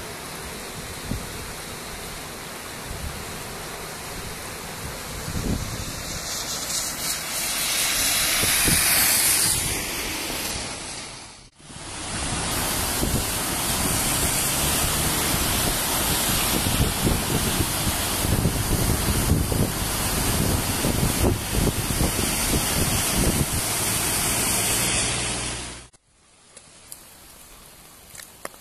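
Floodwater rushing in a swollen river, with wind buffeting the microphone: a steady, loud hiss. It cuts out for a moment about eleven seconds in, comes back, and drops to a much quieter hiss near the end.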